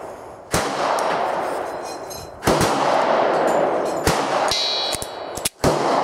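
Gunshots at a shooting range: several irregularly spaced shots, each trailing a long echo, with a few coming in quick succession near the end.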